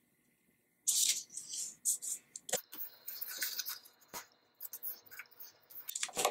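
Red construction paper being folded and creased by hand on a table: short paper rustles and scrapes, the loudest about a second in, with a few sharp clicks.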